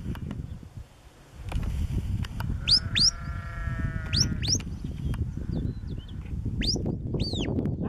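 A sheep gives one drawn-out bleat, lasting about a second and a half. Several short, high, rising chirps sound in pairs around it, over a steady low rumble.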